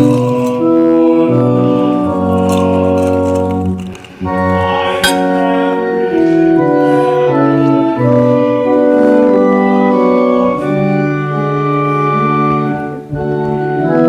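Church organ playing slow, sustained chords, with short breaks between phrases about four seconds and thirteen seconds in.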